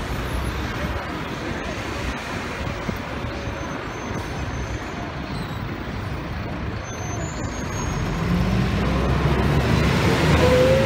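Open-top double-decker tour bus moving slowly past in street traffic with its engine running, then accelerating from about eight seconds in, growing louder with a rising engine note.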